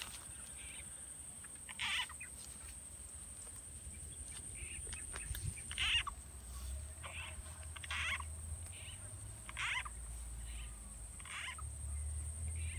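A series of short frog-like croaks, one every second or so, each about a third of a second long. A steady high-pitched drone and a low wind rumble run underneath.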